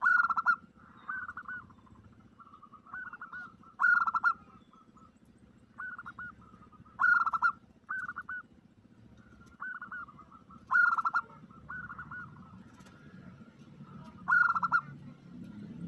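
Zebra doves (perkutut) cooing: short staccato cooing phrases repeated throughout, louder ones about every three to four seconds with softer coos between them, used as a lure call.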